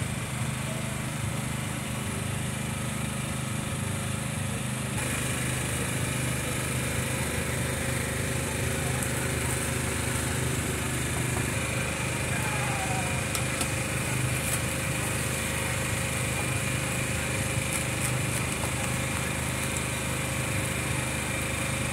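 A small engine running steadily, a continuous low drone with a pitched hum.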